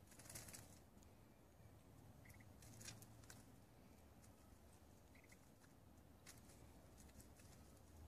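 Near silence, with a few faint short rustling crackles, the clearest about half a second and three seconds in. Two faint, short double chirps from a small bird come about two and five seconds in.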